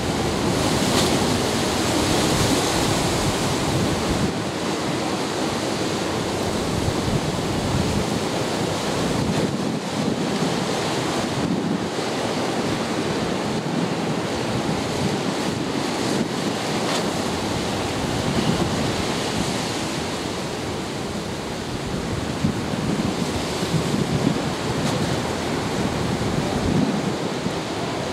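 Ocean surf churning and washing against the inlet's rock jetty and concrete breakwater blocks, rising and falling in surges, with wind buffeting the microphone.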